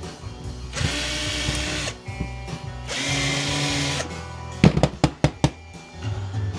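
Power drill running in two bursts of about a second each, driving out the screws of a plastic pumpkin light's battery compartment, followed about two-thirds of the way in by a quick run of sharp plastic clicks and knocks as the housing is opened.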